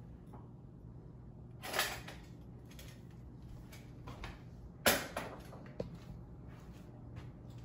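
A few light knocks and clatters of household items being handled and set down on a kitchen counter. The loudest comes about five seconds in, with a smaller one about two seconds in, over a steady low hum.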